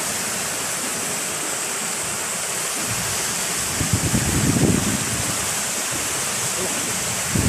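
Muddy floodwater rushing down a normally dry ravine that storm runoff has set running: a steady rushing noise. Around four to five seconds in, a low buffeting rumble rises over it briefly.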